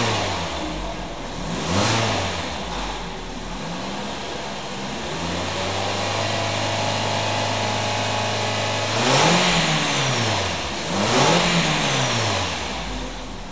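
2008 Nissan X-Trail's 2.5-litre four-cylinder petrol engine revved while parked: short blips at the start and about two seconds in, then held steady at around 3,000 rpm for about four seconds, then two sharper revs that rise and fall near the end.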